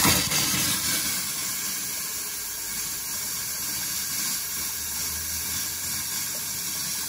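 Cold water and compressed air rushing out of an open bathroom-sink faucet into a ceramic basin: a steady hiss that starts suddenly as the tap opens. A compressor on the cold line is blowing the pipes dry for winter.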